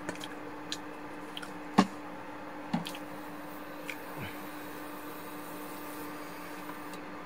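Kitchen handling sounds: a few short, sharp clicks and taps, the loudest about two seconds in, over a steady low hum.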